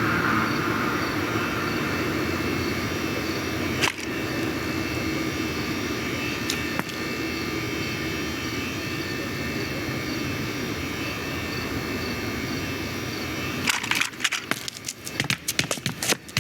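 A delivery truck driving, with steady engine and road noise. There is a single sharp knock about four seconds in. Near the end, a quick, irregular run of clicks and knocks breaks into the steady noise.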